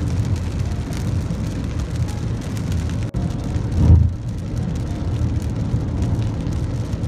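Steady road noise inside a car cabin driving on a wet highway in the rain. A brief low thump comes about four seconds in.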